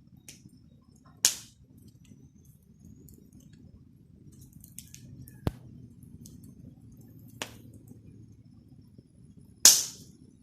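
Campfire burning, with a low steady rumble of flames and four sharp pops of wood cracking in the fire. The loudest pops come about a second in and near the end.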